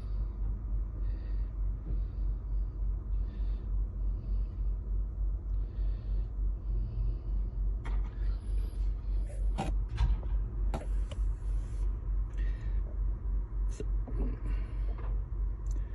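Steady low rumble with a regular pulse, and a few sharp clicks about eight to eleven seconds in.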